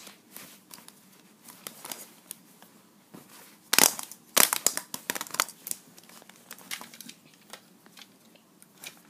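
Handling noise from vinyl toy figures being moved about on a fabric blanket: irregular rustles, crinkles and small clicks and knocks, with a dense, louder cluster a little before the middle.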